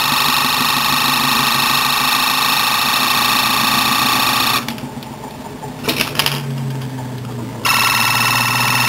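Homemade iron-core axial-flux pulse motor running with a steady electrical buzz and whine. About four and a half seconds in, the high whine drops out for about three seconds, with a couple of clicks, then comes back while the low hum carries on.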